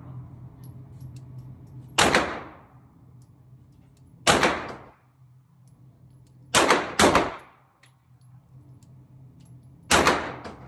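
Five shots from a 9mm Glock pistol on an indoor range, fired at a deliberate pace with two in quick succession. Each shot ends in a short echo off the range walls.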